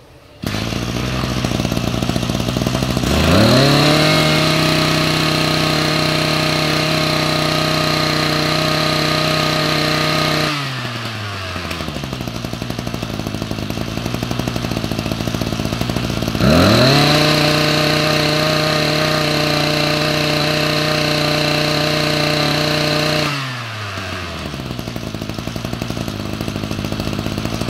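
Ryobi 23cc two-stroke brush cutter engine starting up and idling. It is throttled up to high revs twice for about seven seconds each, dropping back to idle in between, and cuts off at the end.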